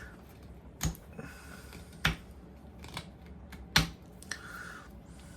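Carving knife cutting into a poplar block: sharp clicks as the blade bites and chips snap free, three strong ones and two softer ones, with soft scraping of the blade between.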